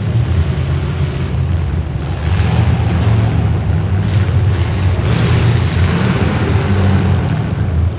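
Demolition derby car engines running loud and rough, with a steady rumble and no clear crash impacts.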